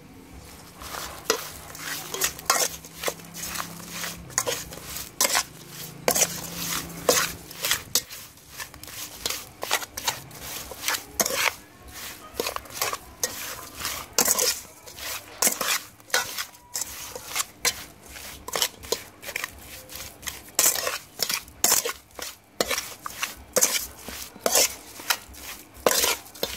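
Metal ladle clinking and scraping against a metal pot as raw sliced beef is tossed with its seasonings: a run of irregular clinks, a few each second.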